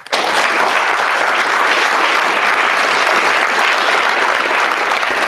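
Lecture audience applauding steadily, a dense sustained clapping that starts abruptly just at the opening, in response to the speaker's closing "Thank you."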